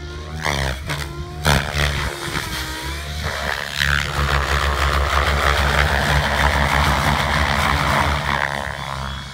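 Radio-controlled helicopter flown hard through aerobatic manoeuvres. Over the first few seconds its motor and rotor whine swoops up and down in pitch, then turns into a loud, steady rush of rotor-blade noise that eases off near the end.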